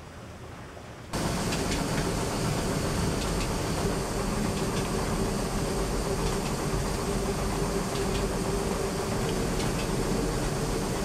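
Water running in a stone mill race for about a second, then the loud, steady rumble and rattle of a water-driven millstone and its gearing grinding grain, with faint irregular clicks.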